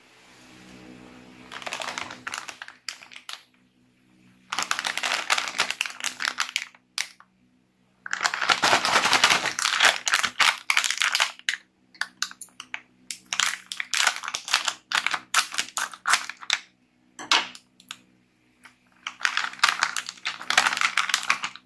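Metallized plastic potato chip bag crinkling and crackling in the hands in several bursts with short pauses, as it is handled and opened at the top.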